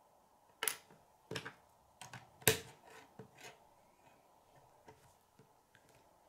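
Plastic K'nex rods and connectors clicking as they are snapped together and set down on a wooden table: a handful of sharp clicks over the first three seconds or so, the loudest about two and a half seconds in, then a few faint ticks.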